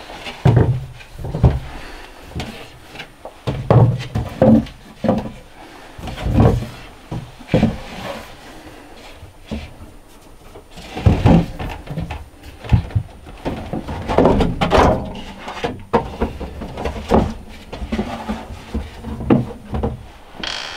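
Irregular wooden knocks and thuds of butternut squash and other produce being set down on wooden shelves in a small wood-lined cold cellar, with short pauses between placements.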